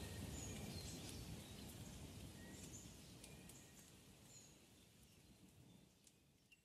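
Faint outdoor ambience with scattered short, high bird chirps over a low rumble, fading out to near silence.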